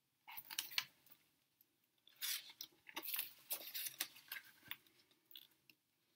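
Faint crackling and rustling of paper as the pages of a hardcover picture book are handled and turned: a scatter of short, crisp strokes.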